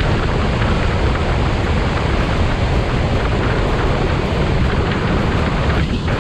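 Loud, steady rushing of wind buffeting the microphone, heaviest in the low rumble.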